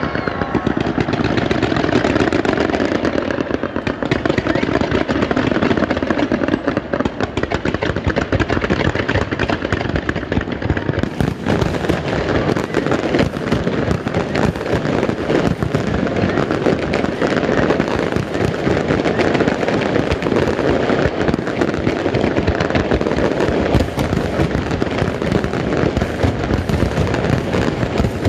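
Fireworks display: a dense, unbroken barrage of aerial shell bursts and crackling, many reports overlapping with no pauses between them.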